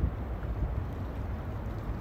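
Wind buffeting the microphone: a low, fluctuating rumble.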